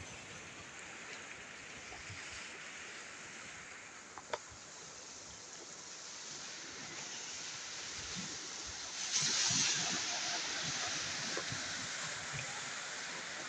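Sea surf washing against shoreline rocks: a steady hiss of small waves that swells louder about nine seconds in as a wave breaks.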